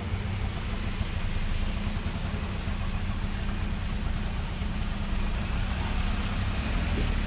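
Auto-rickshaw's small engine running with a steady low rumble, under the hiss of heavy rain and tyres on a wet road.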